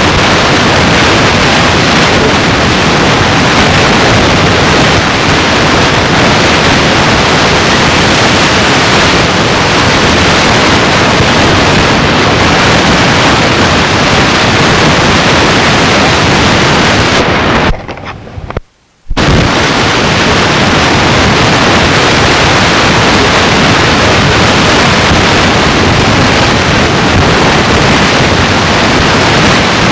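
Loud, steady static hiss from the recording, cutting out for about a second around 18 seconds in.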